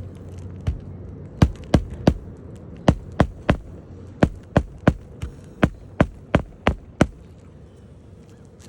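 Hammer striking nails through a roof shingle by hand: sharp blows in short runs of three or four, about three a second, with short pauses between runs. They stop about seven seconds in.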